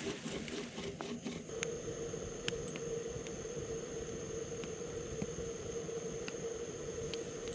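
Jetboil canister stove's gas burner running with a steady hiss and hum as it heats a pot of water. A few sharp pops from a campfire crackling.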